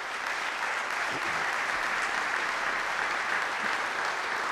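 Audience applauding: a large crowd clapping steadily.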